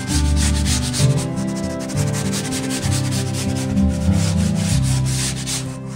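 Background music with repeated scratchy rubbing strokes along a wooden benchtop edge.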